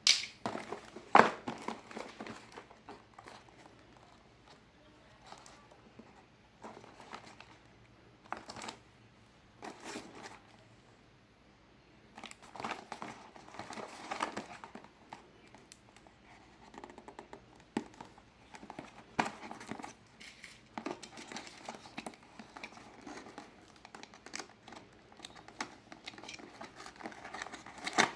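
Packaging crinkling and rustling in irregular bursts as it is handled and unwrapped, with a quieter stretch about eleven seconds in.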